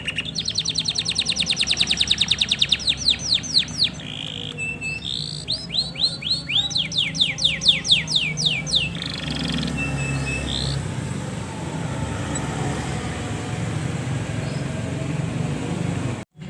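Male canary singing: a fast rolling trill of repeated high notes, then a slower series of falling notes. The song breaks off about nine seconds in, leaving a steady low hum.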